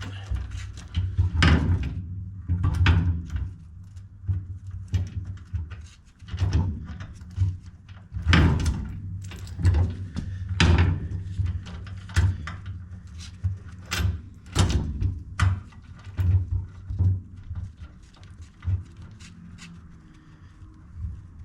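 Irregular metal clunks, knocks and clicks as a heavy steel power steering gearbox is handled against a truck frame and its first mounting bolt is fitted.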